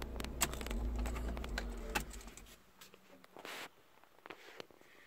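Irregular light clicks and taps over a low hum that fades out about two and a half seconds in, leaving a few scattered clicks.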